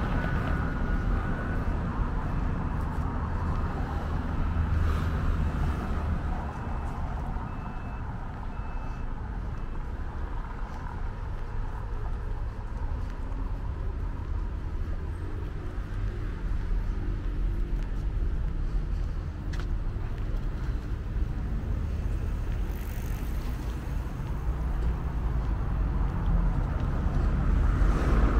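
Street traffic: a steady low rumble of cars moving along a town road, rising a little near the end.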